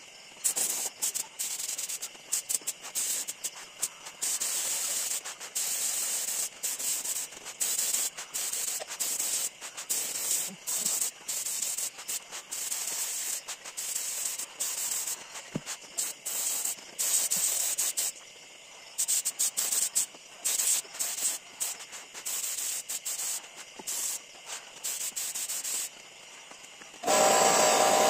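Gravity-feed air spray gun hissing in on-and-off bursts as its trigger is pulled and released, spraying finish onto wood. About a second before the end a louder, steady motor-like sound starts.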